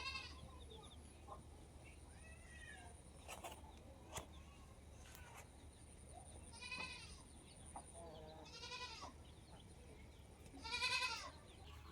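Goat bleating several times at a distance, in wavering calls, the loudest near the end, with a few sharp clicks in between.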